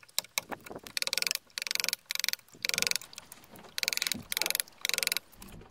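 Wooden mallet striking a carving chisel into a wooden log: a run of short, sharp blows at roughly two a second, pausing briefly a little past the middle.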